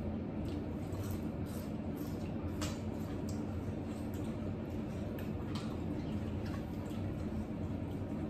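Small eating sounds at a table: scattered faint clicks and soft squishes of hands and utensils on plates and of chewing, over a steady low hum.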